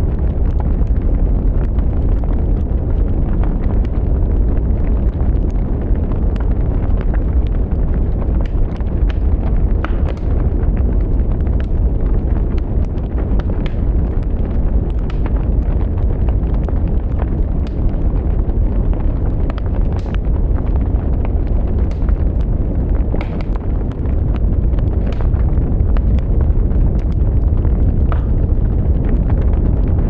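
Wood fire burning with a steady low rumble of flames and frequent sharp crackles and pops from the burning wood.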